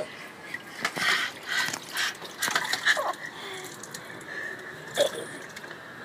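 Water sloshing and splashing in a tub as an animal is moved about in it, in short irregular splashes. A faint steady high tone comes in about halfway.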